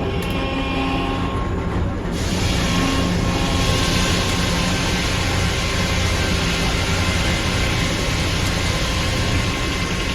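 Sawmill machinery running with a steady low hum; about two seconds in, the headrig saw enters a red oak log and a loud, even cutting hiss carries on through the cut.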